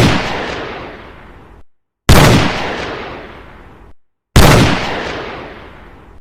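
Three single gunshots from a sound-effect library, about two seconds apart. Each is a sharp bang followed by a long, fading echo that cuts off into silence before the next shot.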